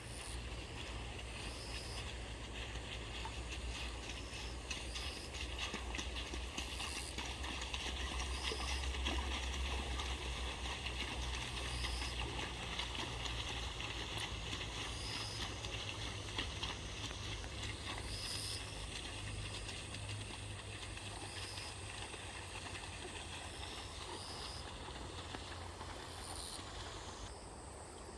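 Outdoor ambience of grass insects, with short high chirps repeating every couple of seconds over a steady hiss, and a low rumble that swells in the middle and then eases.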